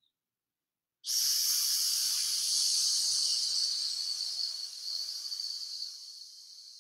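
A person breathing out in one long, steady 'sss' hiss through the teeth, a controlled exhale in a diaphragm breath-control exercise for singing. It starts abruptly about a second in and slowly fades over the rest of the breath.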